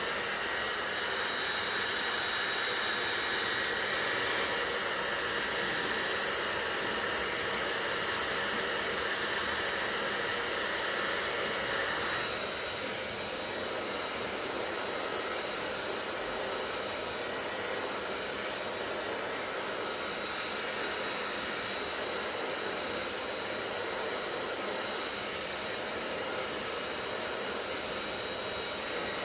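Hair dryer running steadily: an even rush of air with a faint motor whine. About twelve seconds in, the sound changes and becomes slightly quieter, then runs on steadily.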